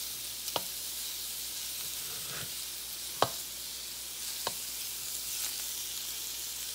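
Shrimp sizzling in a stainless steel pan, a steady frying hiss, while a spatula stirs them and knocks sharply against the pan a few times, loudest about three seconds in.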